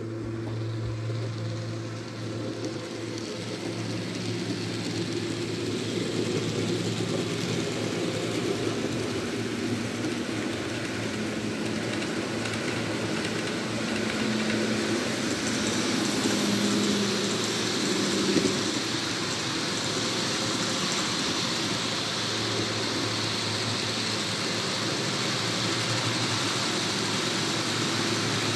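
N gauge model train running on the layout: a steady whir and rumble of the motor and wheels on the track, getting louder partway through as a Mk3 push-pull rake draws near and passes.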